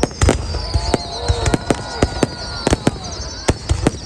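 Aerial fireworks going off: many sharp bangs in quick, irregular succession over a low rumble, with high whistling tones sliding slowly down in pitch.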